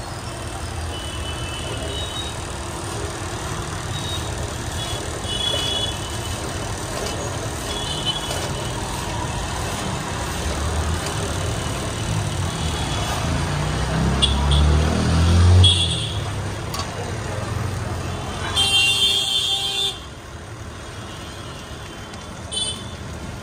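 Street traffic going by: engines rumbling, a heavy vehicle passing loudly about two-thirds of the way in, and several short horn toots, the longest and loudest a few seconds before the end.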